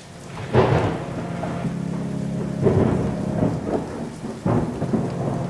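Thunderstorm: thunder rumbling in three swells over steady rain, with a low steady drone underneath.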